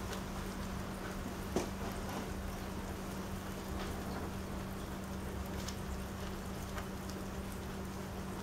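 Rain falling onto a wet wooden deck, a steady patter with scattered single drops ticking into the puddles on the boards; one drop lands louder about a second and a half in. A steady low hum runs underneath.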